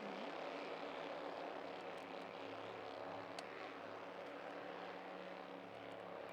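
A pack of Bandolero race cars, with small single-cylinder Briggs & Stratton engines, running laps together as a steady, layered engine drone.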